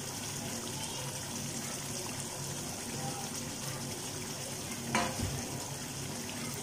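Thick beef curry sizzling steadily as it cooks down in a non-stick pan, with a wooden spatula stirring it and knocking once against the pan about five seconds in.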